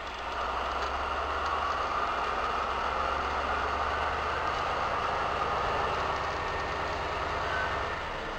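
M62 'Sergei' diesel locomotive's two-stroke V12 engine running at close range, with a steady low hum under a broad mechanical roar. It gets louder about half a second in and eases back just before the end.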